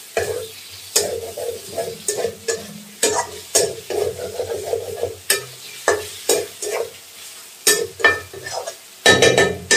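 Metal spatula scraping and stirring prawns and tomatoes in a metal kadhai, in irregular strokes against the pan, over the sizzle of frying oil. A quick, louder run of strokes comes about nine seconds in.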